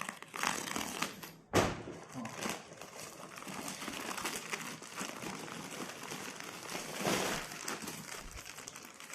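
Plastic packaging crinkling and crackling as it is handled, with one sharp thump about a second and a half in.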